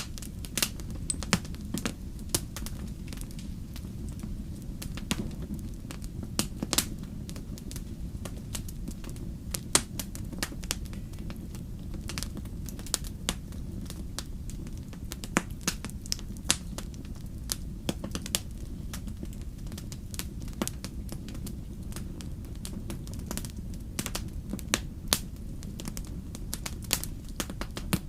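Wood fire crackling steadily: a low rumble of burning under frequent irregular snaps and pops from the logs, some of them sharp and loud.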